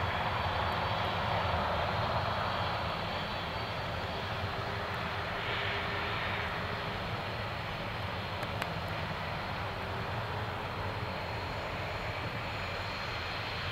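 UPS Boeing 767 freighter's twin jet engines running at low power as it taxis: a steady roar with a faint high turbine whine over it.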